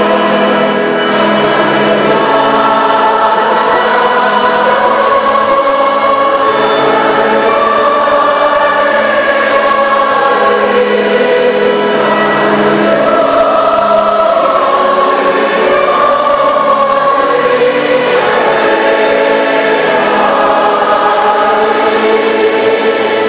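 Church choir singing a slow hymn in long held notes.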